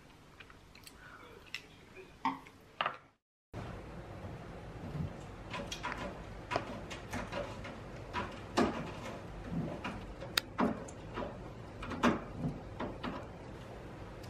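A cat clambering on a wooden cat tower: many irregular knocks and taps of paws and claws on the wood. Before it, a few faint clicks of wooden chopsticks, cut off by a brief dropout about three seconds in.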